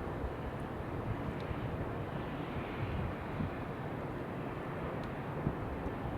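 Steady outdoor wind ambience with a continuous hiss of white noise and low, uneven rumbling of wind against the microphone.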